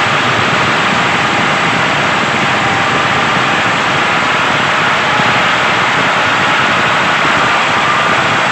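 Small electric motor of a DIY model tractor running steadily, a dense whirring noise with a faint whine.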